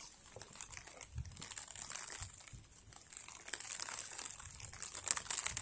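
Faint, irregular crinkly rustling made of many small crackles, like dry leaves or fabric being disturbed.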